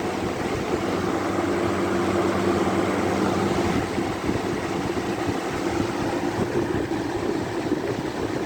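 Two box fans, one a Lakewood brace-bladed fan, running together on high speed: a steady rush of blown air over a low motor hum. One of the hum tones drops out about four seconds in.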